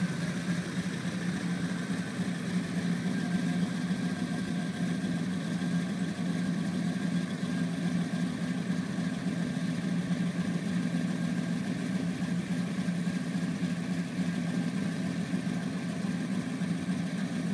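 1968 Chevelle Malibu's engine idling steadily.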